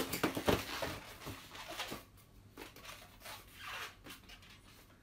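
Latex twisting balloons rubbing against each other and against hands and sleeve as a coiled balloon snake is unwound from the arm. The rubbing is busiest in the first two seconds, then only a few soft rubs.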